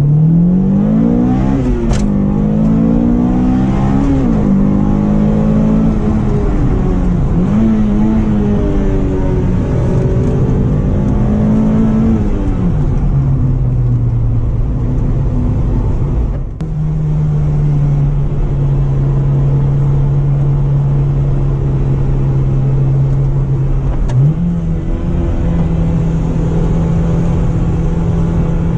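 Car engine heard from inside the cabin, accelerating hard through the gears: its pitch climbs and drops back at each shift several times in the first dozen seconds. It then settles into a steady cruise, dips briefly about 16 seconds in, and steps up again near the end.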